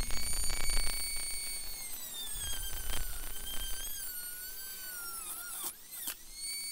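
Dremel rotary tool with a cut-off wheel cutting through thin metal sheet: a high-pitched whine with a rasping edge. The pitch sags as the wheel bites into the metal and recovers, with a quick dip and rise near the end.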